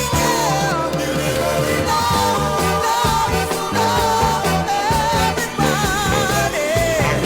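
Music from a 1970s record: a band with bass and drums keeping a steady beat under a wavering lead melody line.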